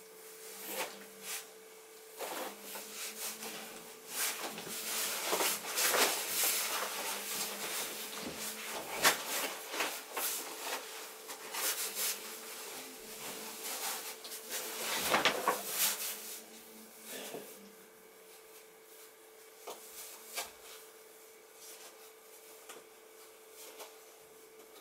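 Rustling, scraping and knocking of a backpack being packed and its straps pulled, in irregular bursts that die down over the last several seconds. A faint steady hum runs underneath.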